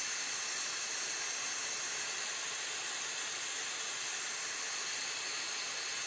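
Hair dryer blowing hot air in a steady rushing hiss, with a faint high whine from its fan, warming a phone's back glass to soften the adhesive.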